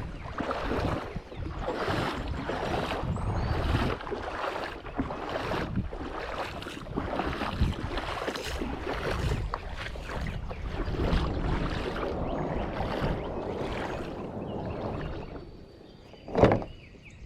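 Rhythmic splashing and sloshing of river water, about one surge a second, with some wind. Near the end it goes quieter and there is one sharp knock, the loudest sound.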